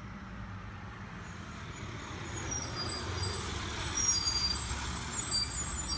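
A full-size school bus driving past on a road, its engine a low rumble that grows louder as the bus draws near and passes, loudest about four seconds in.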